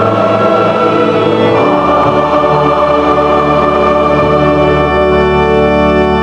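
Choir and string orchestra holding sustained chords, moving to a new chord about two seconds in and holding it as the closing chord of the piece.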